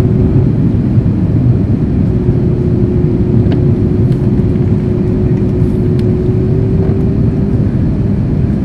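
Cabin noise inside an Airbus A330-300 on its descent: a loud, steady roar of engines and airflow. A steady hum runs through it, rises slightly, then fades out near the end.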